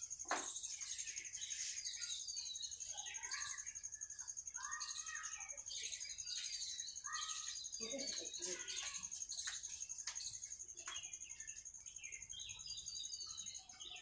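Small birds chirping over and over, short rising and falling calls, over a steady high-pitched hiss.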